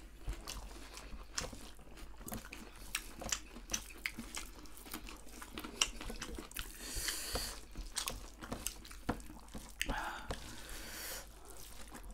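Close-up eating sounds: chewing and wet mouth clicks from people eating rice and fried goat meat by hand, with many small, irregular clicks throughout.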